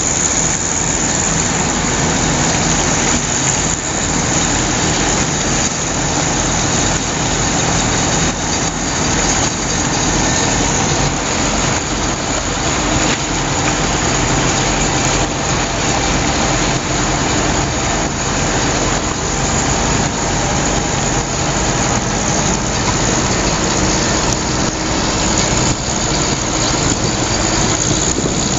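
Volkswagen Schwimmwagen Typ 166's air-cooled flat-four engine running steadily as the amphibious car cruises under propeller power, under a constant rush of water.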